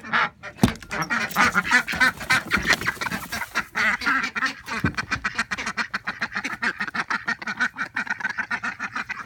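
A small flock of domestic ducks quacking over and over, several short quacks a second with calls overlapping. A latch clicks once sharply near the start.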